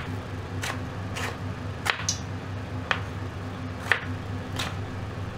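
Kitchen knife cutting through a tomato and tapping on a wooden cutting board: sharp, irregular taps about once a second.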